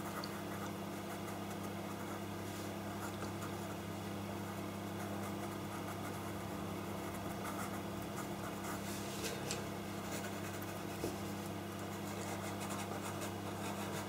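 A pastel pencil scratching faintly on pastel paper as it shades, over a steady low electrical hum.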